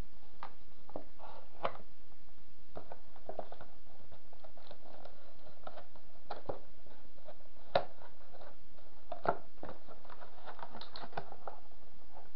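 Handling noise: scattered light clicks, taps and rustles as a plastic computer keyboard and its cardboard box are moved about, with a few sharper knocks in the second half, over a steady hiss.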